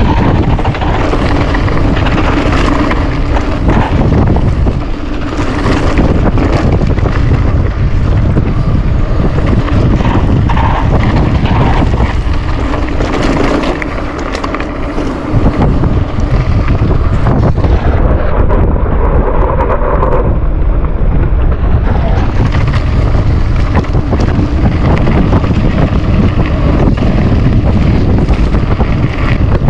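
Wind buffeting the microphone of a camera carried on a bicycle during a fast downhill ride, a loud, steady rush with many short knocks and rattles from riding over the road surface.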